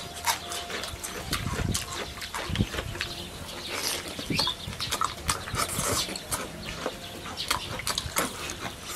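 Close-up eating sounds: wet chewing, lip-smacking and sucking as stewed oxtail meat is gnawed off the bone, a dense run of short wet clicks and smacks.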